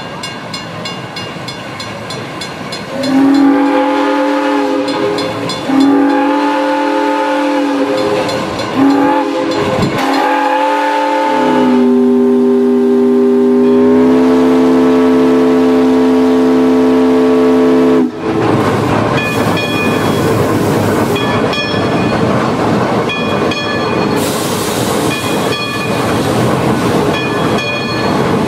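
No. 6 Climax geared steam locomotive's whistle, several tones at once, sounding the grade-crossing signal: two long blasts, one short, then a final long blast held about eight seconds, its pitch dropping slightly early on and then holding steady. Before and after the whistle, the locomotive is heard running, with faint regular clicks.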